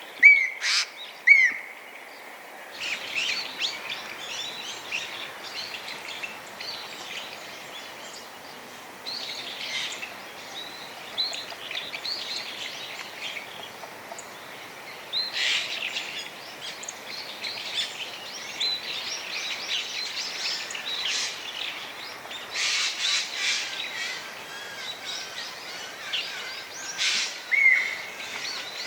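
Eurasian jay calling: two short, loud clear notes near the start, then a long run of varied chattering and harsh notes, louder in bouts around the middle and near the end. This crow-family bird is a skilled mimic with many kinds of call.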